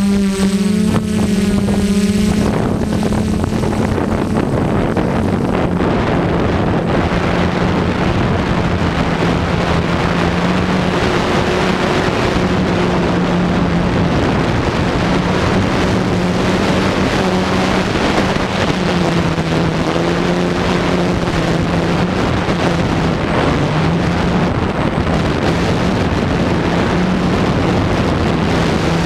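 Camera drone's electric motors and propellers buzzing steadily, the pitch wavering and stepping up and down as the craft flies, over a rush of wind on the microphone.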